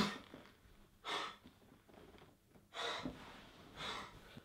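A man's heavy breathing: four breathy gasps, the first right at the start, then spaced about one to two seconds apart.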